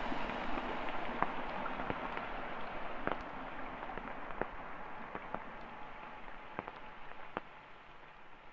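Ambient track's closing texture: an even noisy hiss with scattered clicks and crackles, fading out steadily.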